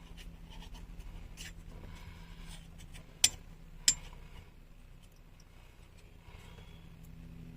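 Light handling clicks and taps as a rubber fuel hose is worked onto a replacement fuel pump, with two sharp clicks about halfway through. A low steady hum runs underneath.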